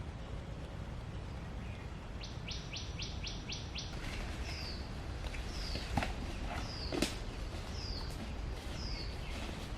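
Songbirds calling: a quick trill of about seven high notes, then one bird repeating a short, high, falling note about once a second. Two sharp knocks sound about six and seven seconds in, over a steady low rumble.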